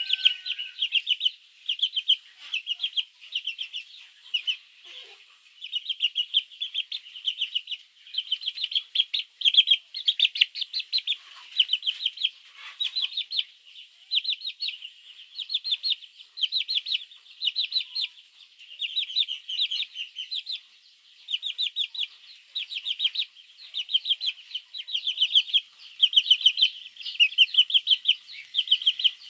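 Baby chicks peeping continuously: rapid runs of short, high-pitched chirps in bursts of about half a second to a second, one after another.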